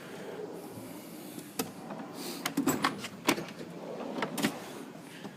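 Metal tool chest drawers sliding shut and open on their runners, with several sharp metal clicks and clanks along the way.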